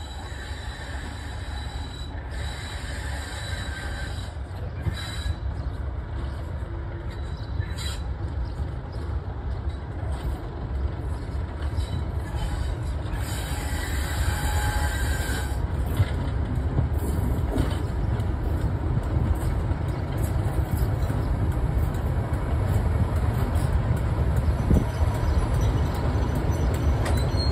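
Class 31 diesel-electric locomotive running as it draws a train toward the listener, its engine rumble growing steadily louder. Thin high-pitched squeals come from the wheels on the curve around the middle.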